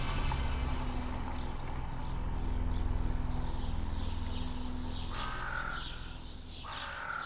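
Low rumble of a car engine fading away, then a bird calling twice near the end.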